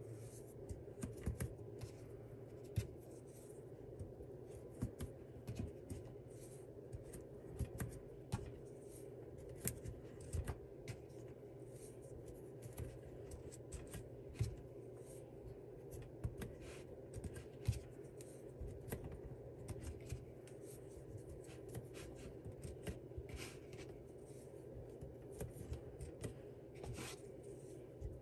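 Faint, irregular clicks and rustles of cotton potholder loops being stretched over the pegs of a wooden potholder loom and handled by the hands, over a steady low hum.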